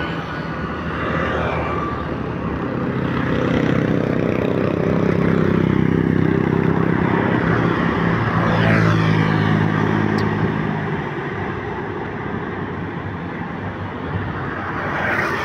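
Road traffic, with a motor vehicle's engine passing close: it grows louder over the first few seconds, peaks mid-way and fades out after about eleven seconds, over a steady background of other traffic.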